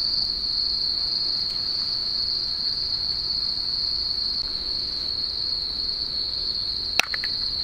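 Crickets singing in a steady high-pitched chorus, with a single sharp click about seven seconds in.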